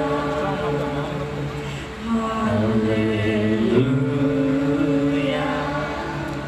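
Slow worship song sung in long held notes, over a steady sustained low accompaniment whose chord changes about two and a half seconds in and again near four seconds.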